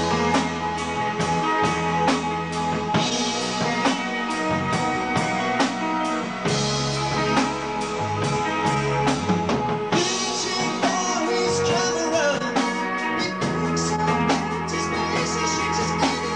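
Rock band playing live: guitar, keyboards and drum kit, with the drums keeping a steady beat.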